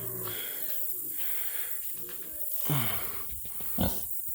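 Kunekune pig snuffling and breathing heavily, with a couple of short low grunts, one falling in pitch about two and a half seconds in.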